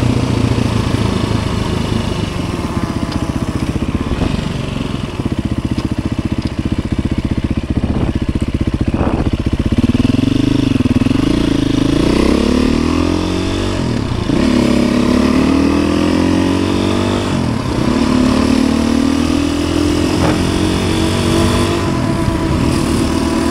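Dual-sport motorcycle engine running under way, steady at first, then revs climbing and dropping back several times in the second half as the rider works the throttle and shifts gears.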